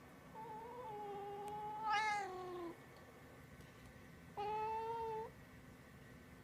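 Domestic cat meowing twice: a long drawn-out call that swells in the middle and falls away at the end, then a shorter, steadier call a couple of seconds later.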